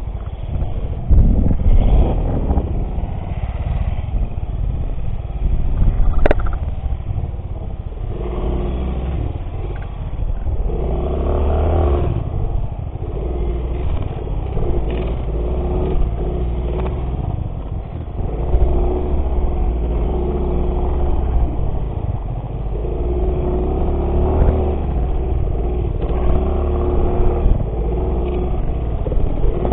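Small single-cylinder trail motorcycle engine running while being ridden off-road, its note coming and going with the throttle over a heavy low rumble. A sharp click comes about six seconds in.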